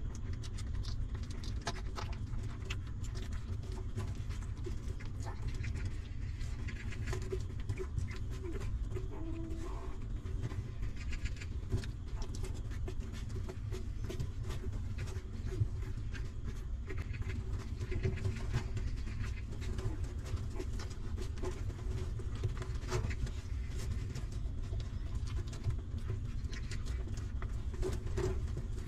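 Newborn puppies suckling at their mother dog: many small clicks from the nursing, with a brief faint squeak about ten seconds in, over a steady low rumble.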